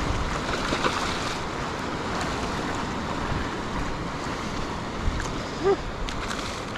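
Shallow surf washing around the feet, with wind on the microphone. A short squeaky tone sounds once, a little before the end.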